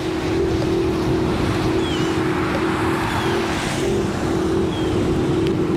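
Inmotion V12 electric unicycle riding on wet pavement: a steady motor hum over tyre and wind rush. A car swishes past on the wet road alongside about four seconds in.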